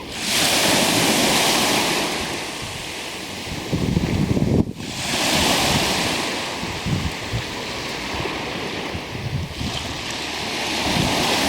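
Black Sea waves breaking and washing up the shore in three surges about five seconds apart, with wind buffeting the microphone a little before the middle.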